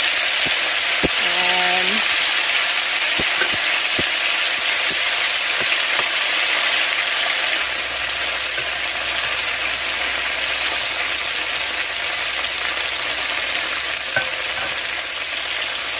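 Drained, pressure-canned diced potatoes frying in hot grease in a pan: a steady, loud sizzle that eases off a little about halfway through, with a few light clicks.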